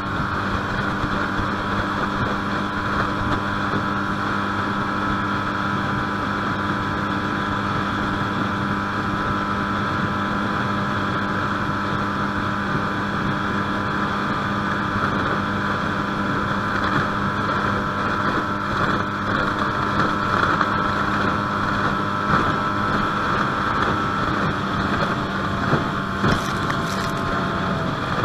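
20 HP Mercury four-stroke outboard running at a steady speed, driving a 14-foot jon boat along, with wind and water noise over it. A few short knocks come near the end.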